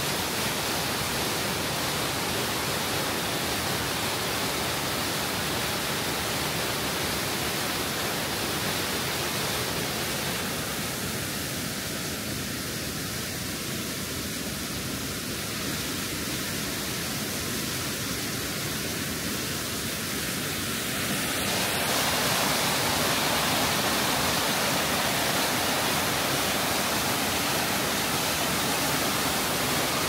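Waterfall plunging into a rock pool: a steady rush of water that gets louder about two-thirds of the way through.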